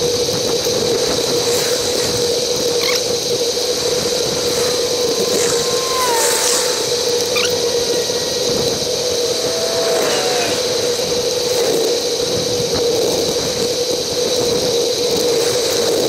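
Steady wind and road noise from a bicycle on the move, with a constant hum underneath and a couple of brief gliding tones about six and ten seconds in.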